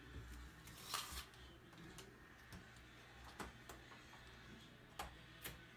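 Near-quiet room with a few faint, separate clicks. Near the end a brass doorknob is gripped and turned, and its latch clicks.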